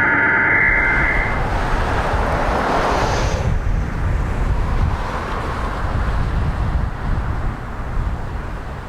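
Strong wind buffeting the microphone with a heavy low rumble. A broader hiss of noise above it fades out about three and a half seconds in.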